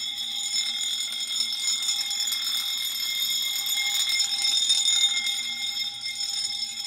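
Wheelock fire alarm bell and horn-strobes sounding together without a break, a steady ringing alarm tone: the pre-discharge alarm of an FM-200 fire suppression system.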